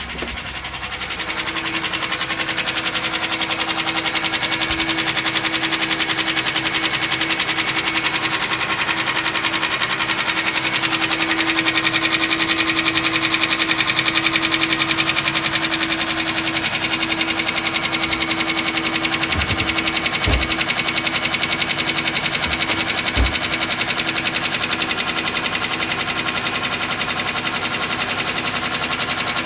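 2005 Chevy Equinox's 3.4-litre V6 running just after a cold start with a fast, steady knocking. This knock only happens when the engine is cold and stops once it warms up; the owner does not know the cause.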